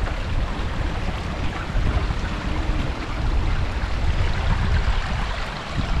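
Wind buffeting an action camera's microphone in an uneven low rumble, over a steady rush of water from a small runnel beside the track.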